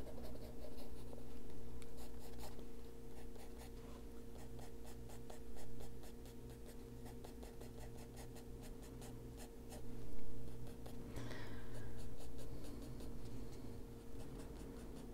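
Derwent Drawing coloured pencil (Chinese White) scratching across a colouring-book page in many quick, short strokes, with a faint steady hum underneath.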